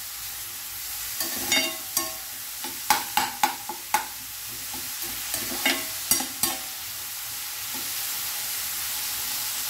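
Chopped onions sizzling in oil in a stainless steel frying pan, stirred with a steel spoon that scrapes and clicks against the pan many times over the first six seconds or so. After that the sizzle goes on alone.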